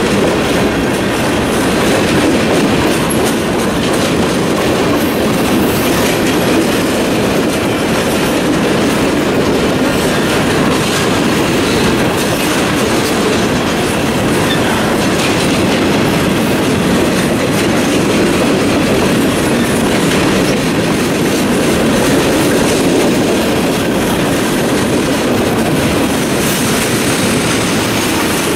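Freight cars of a CSX mixed freight train rolling past: a steady rumble of steel wheels on rail, with clicking as the wheels cross rail joints.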